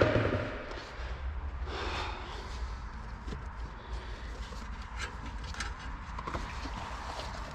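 Scattered light clicks and knocks of work on a car, over a low steady hum of garage background noise.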